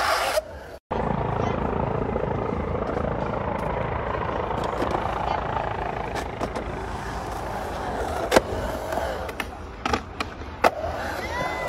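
Skateboard wheels rolling on a concrete bowl, a steady rumble, with a few sharp clacks of the board and trucks hitting the coping in the last few seconds.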